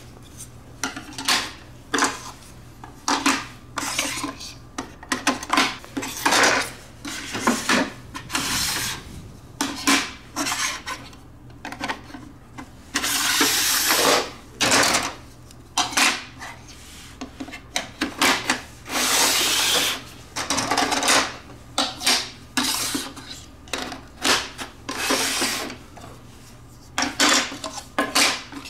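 Plastic LEGO bricks being handled and pressed together: an irregular run of short clicks and clatters, with a couple of longer scraping, rubbing stretches around the middle.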